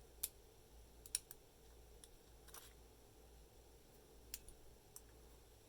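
Near silence with a low steady hum, broken by about eight faint, sharp clicks and taps at irregular intervals, like small hard objects being handled.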